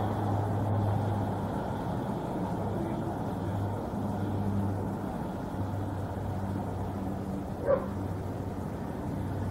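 Outdoor ambience with a steady low hum that comes and goes, and a single short dog bark about three-quarters of the way in.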